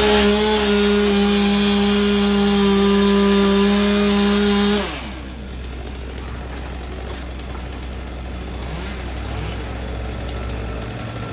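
Two-stroke chainsaw held at full throttle with a steady high pitch for about five seconds, then let back off, its sound dropping away sharply.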